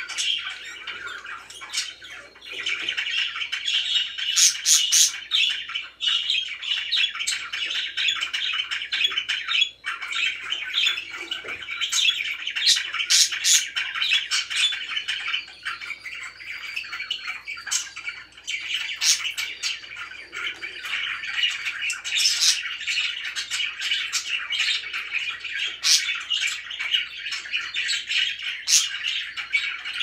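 Several budgerigars chattering and warbling without pause, with frequent short, sharp chirps and squawks over the top.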